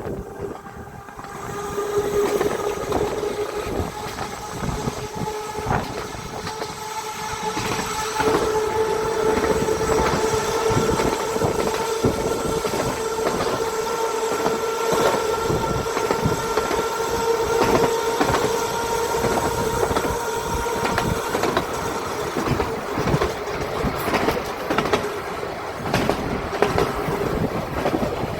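Seaton Tramway electric tram running along its track. The traction motor gives a steady whine, with the wheels clicking over rail joints throughout. The run gets louder about two seconds in and again around eight seconds, and the whine fades away near the end.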